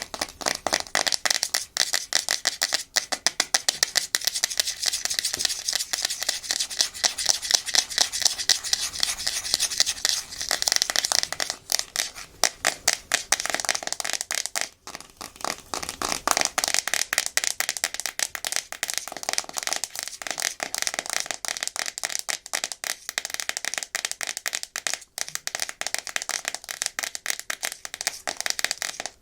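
Natural fingernails tapping and scratching fast and hard on a hard plastic surface: a dense, continuous patter of rapid clicks mixed with scratching, easing off briefly a couple of times.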